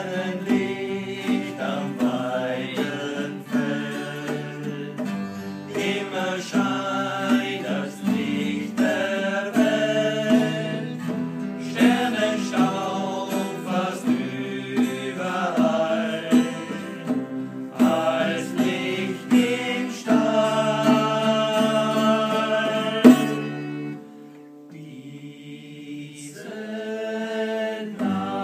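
Acoustic guitar group strumming chords while singing a song together. Near the end the music drops suddenly to a quiet passage, then builds up again.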